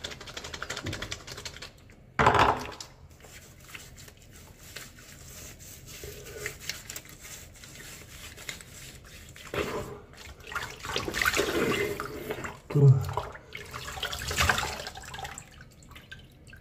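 Water splashing as a man washes his face with his hands over a washbasin. There is a sharp splash about two seconds in, a quieter stretch, then a run of splashes in the last third.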